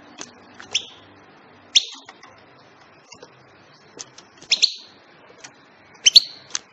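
European goldfinch giving short, sharp chirps, singly and in quick pairs, every second or two.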